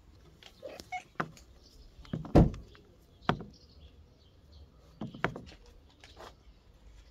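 A few scattered knocks and clicks at irregular intervals, the loudest about two and a half seconds in.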